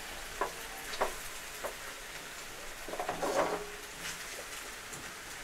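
Masala pasta and vegetables sizzling softly in a non-stick pan while a wooden spatula stirs them, with a few light knocks of the spatula against the pan and a short run of scraping a little past halfway.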